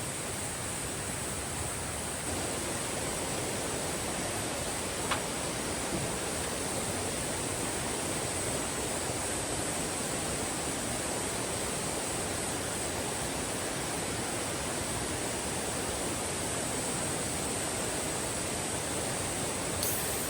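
Valley stream rushing steadily, with a continuous high-pitched insect chorus above it. A single sharp click about five seconds in.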